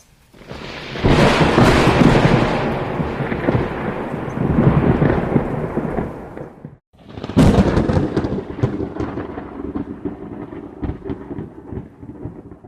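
Two long rolls of thunder, deep rumbling with crackles. The first swells about a second in and fades until it cuts off near seven seconds; the second begins abruptly and slowly dies away.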